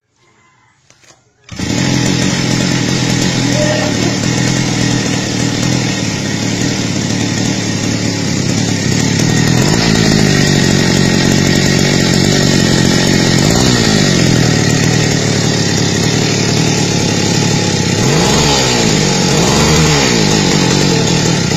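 Kawasaki TD40 small single-cylinder two-stroke engine bursting into life about a second and a half in and then running steadily at a fast buzzing speed. Its speed sags and picks up again a few times in the second half.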